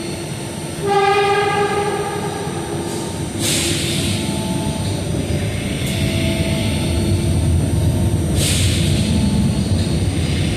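Buffalo Metro Rail light-rail train running with a steady rumble. About a second in, a single pitched horn-like tone sounds for just over a second. Two short bursts of hiss follow, about three and a half and eight and a half seconds in.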